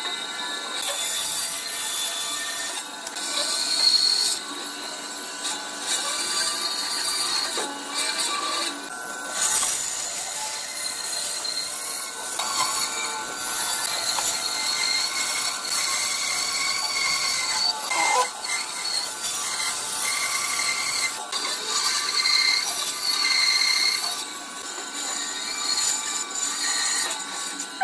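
Band saw running and cutting through a thick block of wood, with a steady high whine and rasp from the blade and a few brief dips in loudness.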